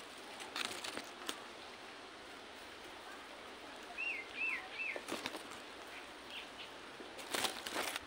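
Bursts of leaf rustling and wing flutter as a large green parrot scrambles and flaps through leafy branches, the loudest burst near the end. About halfway through, a bird gives three short wavering chirps.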